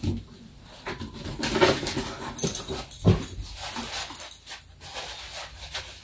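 A foam packing insert being worked out of a cardboard box: knocks of the box and squeaky rubbing of the foam, with sharp knocks at the start and about three seconds in.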